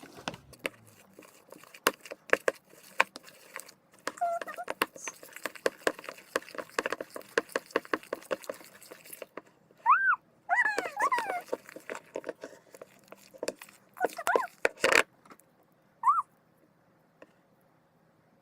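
Thick detergent-and-cornstarch slime being stirred in a cup, a fast run of clicks and scrapes that stops about nine seconds in. Then a few short high whining calls, around ten seconds in and once more near the end.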